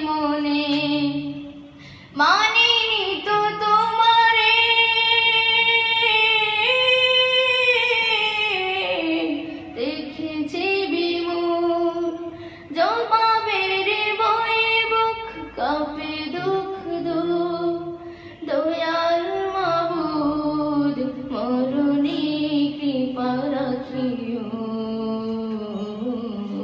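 A boy singing a Bengali Islamic song solo: long held notes that bend and waver, broken into phrases by short breaths, with a clear pause about two seconds in.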